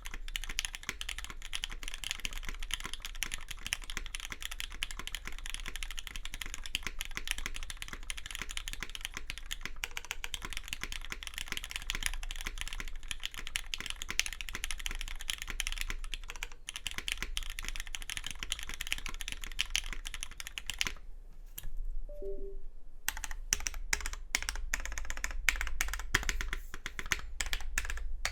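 Typing on a Matrix 8XV2.0 custom mechanical keyboard with an aluminium plate, Krytox 205g0-lubed Cherry MX Black linear switches and GMK keycaps: fast, continuous key clacks. They stop for about two seconds roughly three quarters of the way through, then resume at a looser pace.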